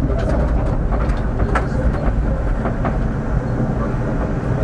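Tram running along its rails, heard from inside: a steady low rumble with a few sharp clicks scattered through it.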